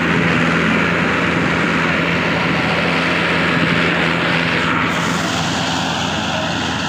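Two diesel tractors, a Mahindra 575 and a Massey Ferguson 1035, running hard under heavy load in a steady drone as they pull against each other on a strap, rear tyres spinning in the dirt. The sound turns duller about five seconds in.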